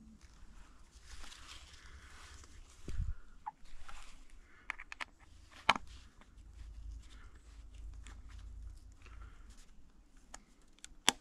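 Rustling and handling noise of a hunter shifting and gripping a scoped rifle: soft scuffing with scattered light clicks and knocks, a low thump about three seconds in and one sharp click a little after the middle.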